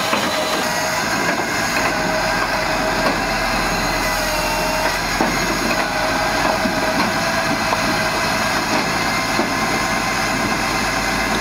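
Hakki Pilke Expert 37 firewood processor running off a tractor's power take-off: a steady mechanical hum of the tractor engine and the machine's drive, with a few light knocks of wood being handled.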